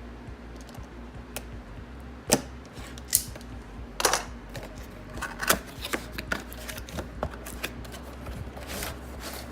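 A socket tray organizer being unpacked and handled: irregular sharp clicks and snaps with short rustles, the loudest snaps about two, four and five and a half seconds in.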